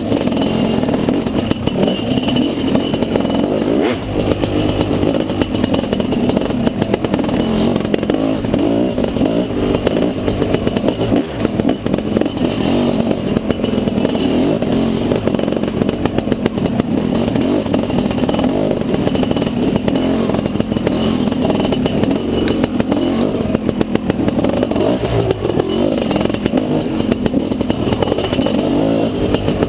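Dirt bike engine running hard and continuously, heard from on the bike, its throttle opening and closing with small swells and dips in level, with some clatter from the bike over rough ground.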